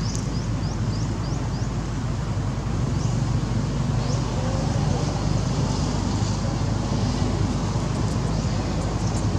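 Steady low outdoor rumble with no clear events, and over it a quick run of short, high, rising chirps in the first two seconds, with a few more later.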